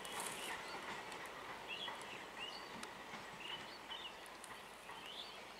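Faint outdoor background with small birds chirping: short high calls repeating every half-second to a second.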